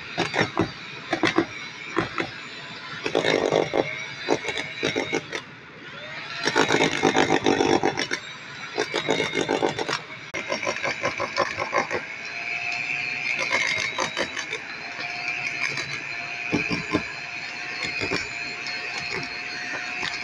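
Corded electric hammer drill boring into concrete, its bit rattling and chattering in uneven bursts of hammering, then running more steadily under load with a high whine in the second half.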